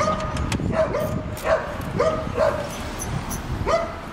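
An animal yipping: about seven short high-pitched cries in four seconds, each rising quickly to a steady pitch, with light clicks in between.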